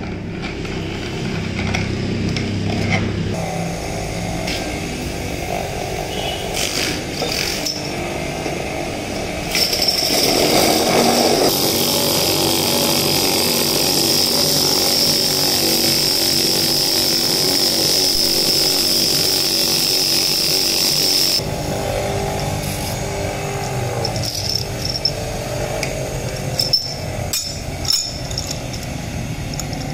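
Small electric bench motor running with a rusty cylindrical roller bearing spinning on its tapered spindle, worked by hand to clean it. From about ten seconds in to about twenty-one seconds there is a louder high-pitched whir with rasping. Near the end come a few sharp metal clinks.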